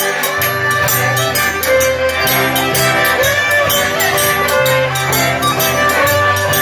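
Live Cajun band playing an upbeat tune with a steady, quick beat.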